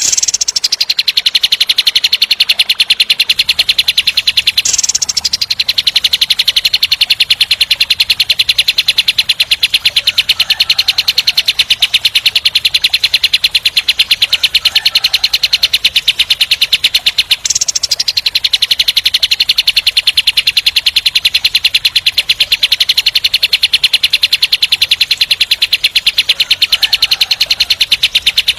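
Kapas tembak songbird giving its rapid 'tembak' rattle: a very fast, tightly spaced high trill, held almost without pause, broken only briefly about five seconds in and again near the middle.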